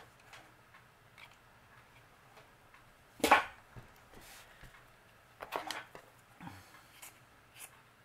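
Paper and felt being handled on a tabletop: mostly quiet, with one sharp rustle or knock about three seconds in and a few softer handling sounds after it.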